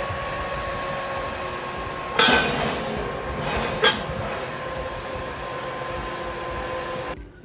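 Convection oven fan running steadily with a faint hum. About two seconds in, a preheated cast-iron skillet and its upturned stainless lid scrape and clank as they are slid off the oven's wire rack, with a sharp clink near four seconds. The fan noise cuts off suddenly just after seven seconds.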